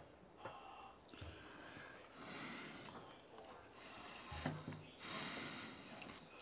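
A man breathing heavily through his nose as he eats, with a few light clicks and taps of a fork against a plate.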